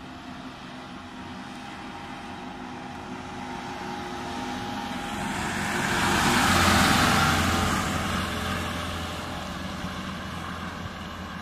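A small box truck's engine running as the truck drives past on two wheels, growing louder as it approaches, loudest about six to seven seconds in, then fading as it pulls away.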